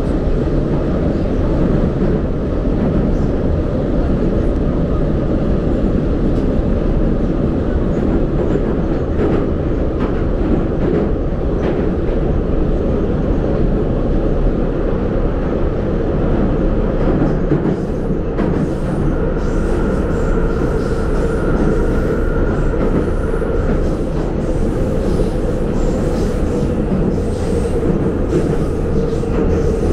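Metro train running, heard from inside the carriage: a loud, steady rumble of wheels and traction motors. A thin whine rises over it for a few seconds about two-thirds of the way through.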